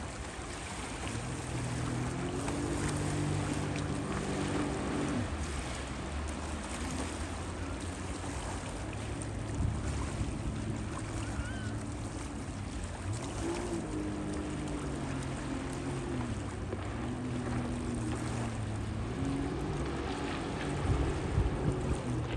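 Jet ski engine running at speed across open water, its pitch rising and falling as it goes, over the wash of water. Wind gusts on the microphone near the end.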